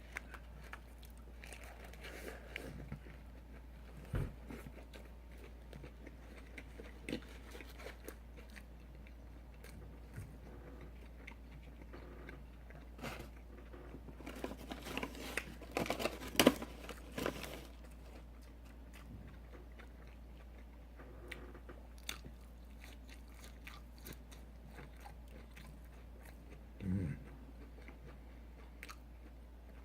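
Person biting and chewing a mouthful of fast food close to the microphone, with wet mouth clicks throughout and a run of louder crunching bites about halfway through.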